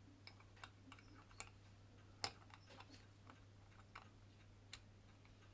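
Faint, irregular small clicks and taps of a partly dismantled pocket watch movement and tools being handled as it is turned over, with one sharper click a little over two seconds in, over a low steady hum.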